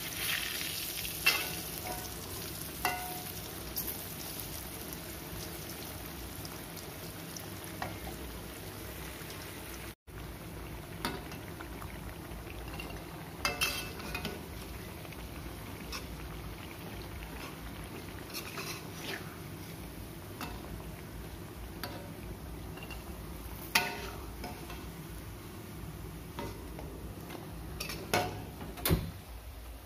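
Food frying in oil in an aluminium wok, a steady sizzle, with a few sharp clinks and scrapes of a metal spatula against the wok.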